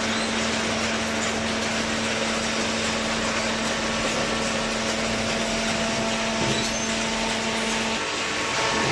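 Hydraulic baler running: a steady machine hum over an even mechanical hiss, with the hum cutting out near the end.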